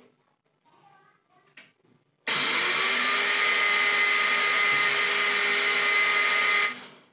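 Electric mixer grinder grinding roasted gram (putani) into a fine powder. The motor starts about two seconds in, its pitch rising briefly as it spins up, runs steadily and loudly, then stops shortly before the end.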